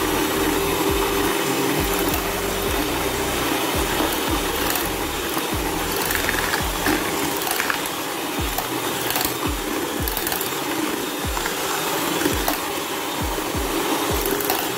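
Miyako electric hand mixer running steadily, its beaters whipping eggs, sugar and SP emulsifier in a bowl.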